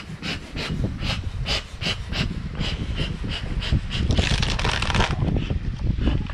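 Bee smoker bellows being squeezed over an open hive, puffing smoke in short, even puffs about three a second, with a longer hiss about four seconds in.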